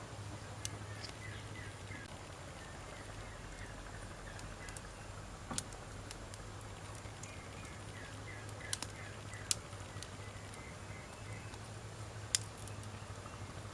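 Wood fire burning, with a sharp crackle or pop every few seconds, about five in all. Runs of short chirps, like distant birds, sound in the background over a low steady hum.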